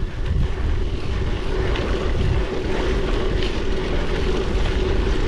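Wind rumble on an action camera's microphone and rolling noise from a bicycle riding over a rough, broken road, with a steady faint hum running through it.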